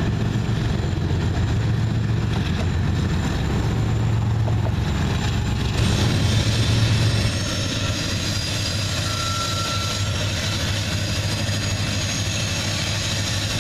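Diesel freight locomotives pulling a train past with a steady low engine drone. About six seconds in it gives way to the lighter, noisier rumble of another slow freight train rolling by.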